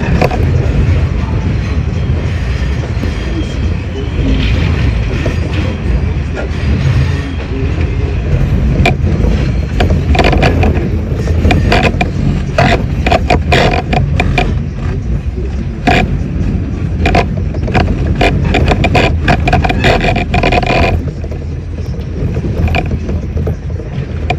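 R68 subway car running on the track, heard from on board: a heavy low rumble with rapid clicking and clatter of the wheels over the rail. It gets quieter near the end.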